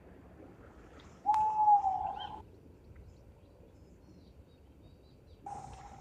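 Snowy owl giving one long call on a nearly steady pitch, about a second in and lasting about a second, with a sharp click at its start. Another similar call begins near the end.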